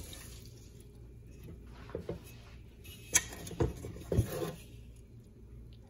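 Hand swirling raw rice and water in a rice cooker's inner pot while washing the rice: a soft low swishing, with a few short clicks and splashes between about two and four and a half seconds in.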